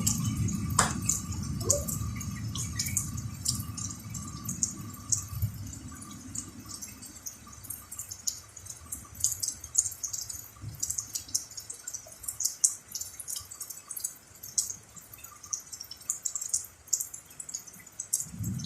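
Rain dripping, with many scattered drops ticking irregularly. A low rumble under it fades away over the first several seconds.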